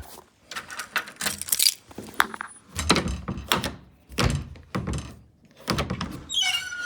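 Irregular clunks, clicks and knocks of metal lock hardware being handled and fitted as a night latch is replaced on a door, with a short squeak near the end.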